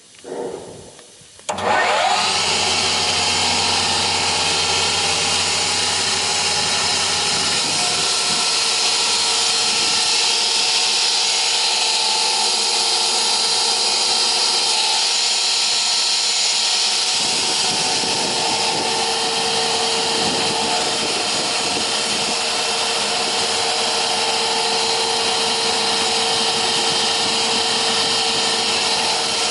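Motor of a REMA DMDK 35 woodworking cross-cut saw switched on about a second and a half in, spinning up and then running steadily at full speed.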